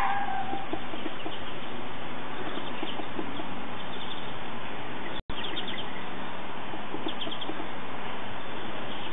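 Short, faint bird chirps over a steady background hiss, with a brief dropout in the sound about five seconds in.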